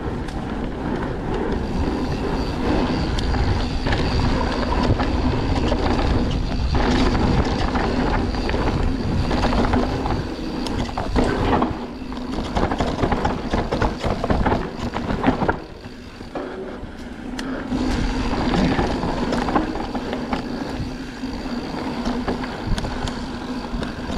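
Mountain bike ridden fast down a dirt forest trail, heard from a camera on the rider or bike: a dense rumble of tyres on dirt and rushing air, with the bike rattling and knocking over bumps. It eases off briefly about two-thirds of the way through, then picks up again.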